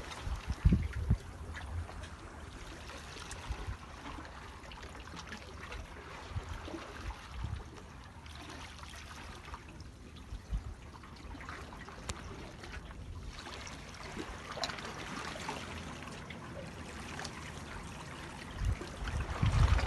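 Water trickling and lapping at a steady level, with scattered small splashes and clicks. Low rumbling bumps come near the start and again near the end.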